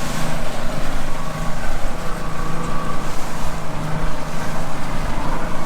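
Boat engine running steadily with a constant low hum, under wind and water noise.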